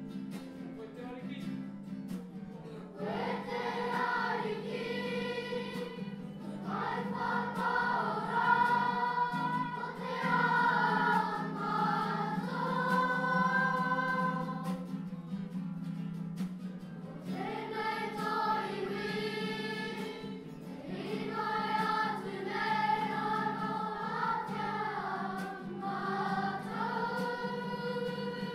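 A children's choir singing a song in unison to an acoustic guitar, in phrases separated by short breaths.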